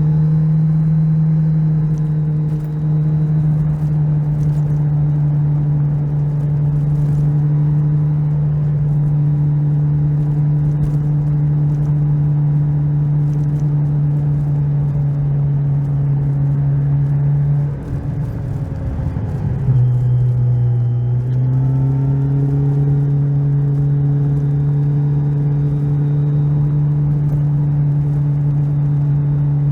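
Kawasaki Z1000SX's inline-four engine running at steady revs under way. About two-thirds of the way through, the note breaks up and drops briefly, as with a gear change, then climbs back and holds steady again.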